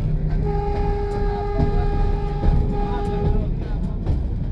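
A train horn sounding one steady note for about three seconds over a low rumble.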